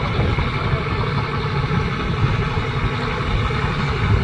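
Fishing trawler's engine running steadily, a continuous low drone.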